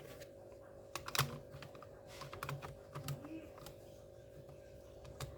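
Irregular light clicks and taps of hard plastic from an Asus X451C laptop being handled during reassembly, over a faint steady hum.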